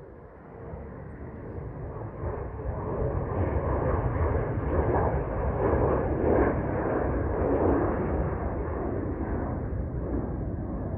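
Jet airliner climbing out after takeoff: the rumble of its engines swells over the first few seconds, is loudest through the middle, then eases a little toward the end.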